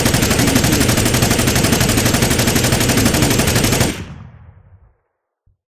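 AK-47 assault rifle firing a long fully automatic burst of rapid, evenly spaced shots for about four seconds. The firing stops abruptly and the echo fades over about a second.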